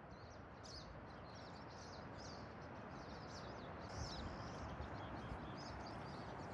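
Steady rush of a large waterfall, Helmcken Falls, with small birds giving repeated short high chirps over it.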